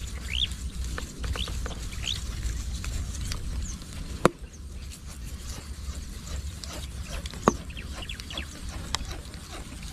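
Outdoor ambience with a low rumble, scattered short rising bird chirps in the first half, and three sharp taps, the loudest about four seconds in.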